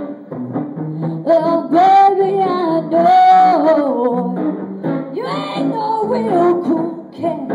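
A woman singing live into a microphone, with held, bending notes, over a strummed acoustic guitar.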